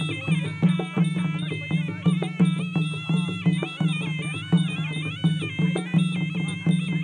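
Traditional Khmer ringside boxing music: a reedy sralai oboe plays a wavering, ornamented melody over a steady beat of skor drums.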